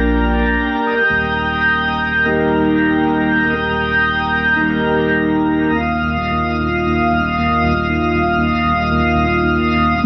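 Freshly rebuilt 1956 Hammond C3 tonewheel organ playing through a Leslie 21H speaker cabinet: sustained chords that change every second or so, with a deep bass note under the first chord that stops about a second in; the last chord holds for the final four seconds.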